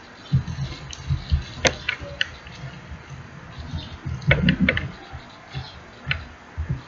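Blue slime being worked and mixed: irregular soft thumps with sharp clicks, busiest about a second in and again around four to five seconds in.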